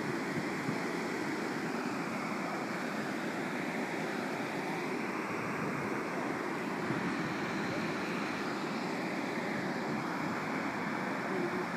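Steady rush of creek water below a dam, an even noise that holds without a break.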